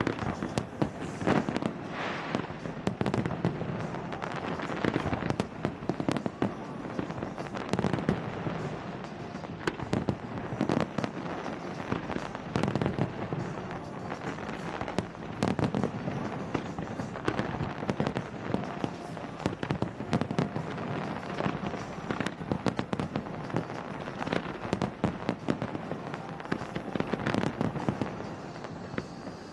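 Large fireworks display going off without pause: many shell bursts and crackling bangs, several a second, overlapping.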